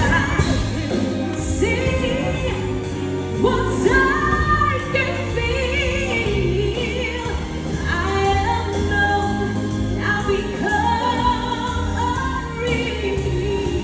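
Live big-band music with singing over it, long held and gliding notes above a steady bass accompaniment.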